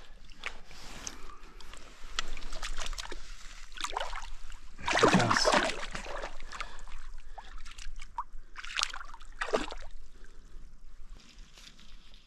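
River water sloshing and splashing in a string of irregular splashes, the loudest about five seconds in and two more near ten seconds: a landed trout being let go into the current.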